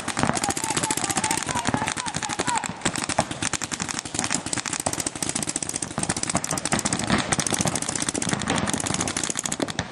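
Paintball markers firing in rapid, continuous volleys, many shots a second, with no pause. Voices shout faintly over it.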